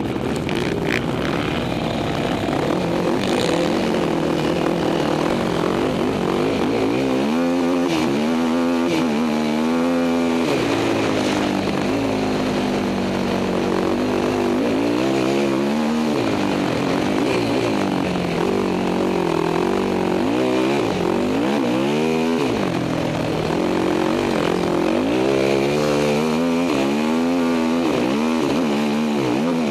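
Sport quad (ATV) engine heard from on board under racing load, revving up and down continuously as it is ridden round a dirt motocross track. The pitch rises and falls again and again, with a fast wavering run of revs about a quarter of the way in and another near the end.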